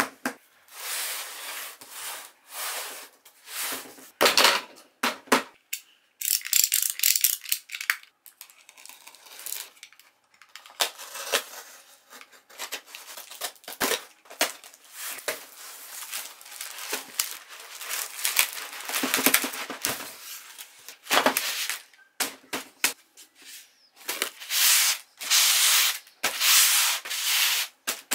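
A taped cardboard shipping box being handled and cut open with a utility knife: irregular scraping and rasping strokes of blade, tape and cardboard, some short and some drawn out over a second or more.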